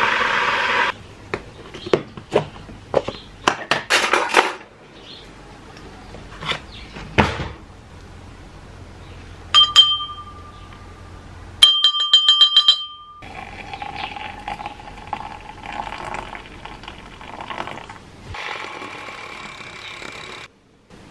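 Kitchen sounds while making a matcha drink: glass and utensil clinks and taps, two short runs of electronic beeping tones about ten and twelve seconds in, and a steady hum. Near the end a handheld battery milk frother whirs in a glass of green matcha for about two seconds, then stops.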